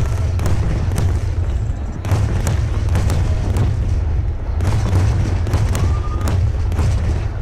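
Rapid-fire fireworks barrage from a water starmine: a continuous deep booming of shell bursts, overlaid with many sharp cracks and bangs in quick succession.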